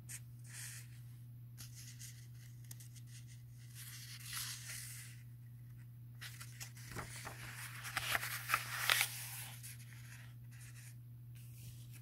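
Pages of a paperback book being handled and turned: soft paper rustling and crinkling, loudest about eight to nine seconds in, over a steady low hum.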